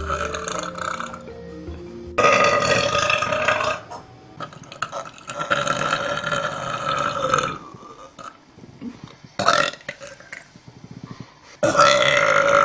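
A young woman belching loudly in a string of long, drawn-out burps, with a short one between them. Background music plays at the start.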